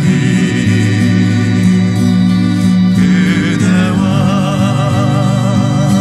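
Background music of slow, held chords, with a melody that wavers in vibrato coming in about four seconds in.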